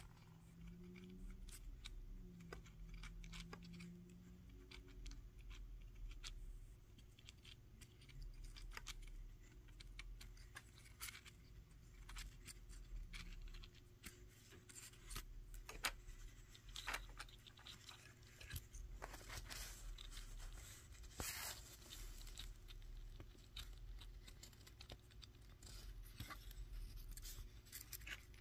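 Paper crinkling and rustling faintly as fingers handle a paper model engine, with scattered small clicks over a steady low hum.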